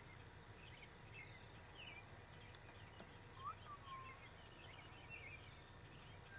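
Faint outdoor birdsong: many short high chirps throughout, with one clearer whistled call, rising then dropping, about three and a half seconds in, over a low steady background hum.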